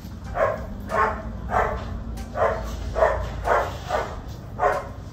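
A dog barking in a steady run, about eight short barks at a little under two a second.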